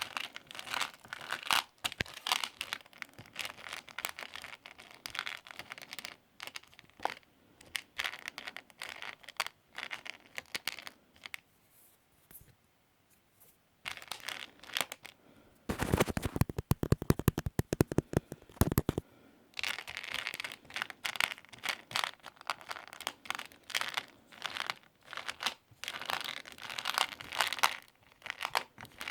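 Crinkling and crackling of plastic or cellophane packaging, handled in irregular bursts. There is a pause about halfway through, followed by a few seconds of rapid, even clicking.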